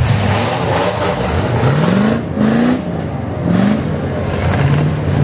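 Demolition derby truck engines revving hard in short bursts, the pitch climbing three times in the middle, then holding a steady high note near the end, over a rough, noisy running sound.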